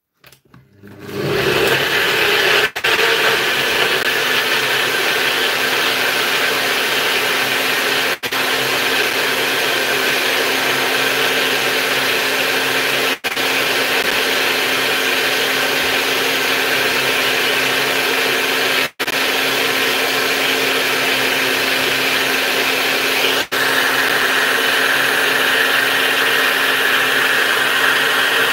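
Personal-size cup blender running continuously, blending fruit, oats and seeds with almond milk into a smoothie. It starts about a second in and runs steadily under heavy load, with a few split-second breaks, and grows a little brighter in tone for the last few seconds.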